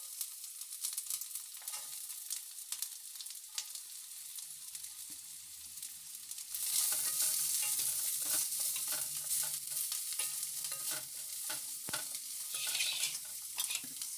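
Chopped onions sizzling in hot oil with mustard seeds in a steel kadai, stirred and scraped with a steel spoon. The frying hiss and the spoon clicks grow clearly louder about six and a half seconds in.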